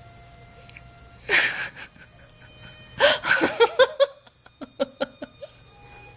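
A woman laughing: a breathy outburst about a second in, then a run of quick giggles about three seconds in that trail off.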